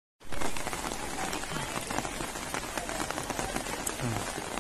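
Heavy rain falling, a steady dense hiss of drops that cuts in suddenly just after the start.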